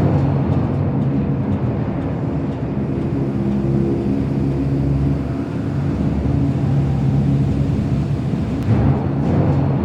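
AT-AT walker sound effect: a steady low mechanical drone with several held tones, briefly swelling louder near the end.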